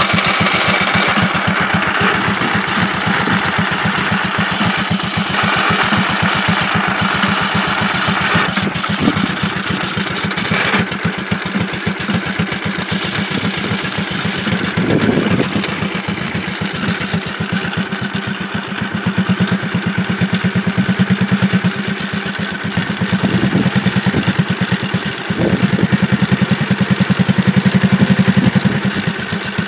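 Kawasaki riding-mower engine running on fuel vapor fed into its intake in place of a carburetor, firing steadily but getting louder and quieter in turn as the vapor feed valve is worked by hand. A hiss sits over the engine for the first ten seconds or so.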